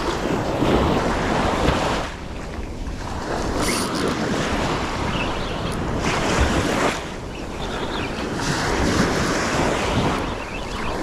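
Small surf waves breaking and washing up a sandy beach, swelling and fading every few seconds, with wind buffeting the microphone.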